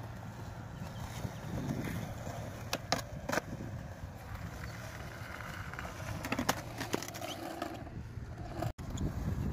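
Skateboard wheels rolling over concrete, with a few sharp clacks of the board striking the ground, the loudest a cluster about three seconds in and another near six and a half seconds.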